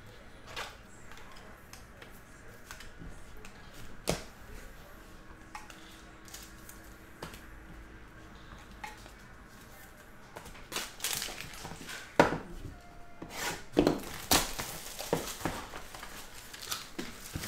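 Trading cards and their hard plastic holders being handled on a table: scattered light clicks and taps, with a sharp knock about four seconds in and a louder one about twelve seconds in. After that comes a few seconds of busier handling and rustling of the card box and its paper packing.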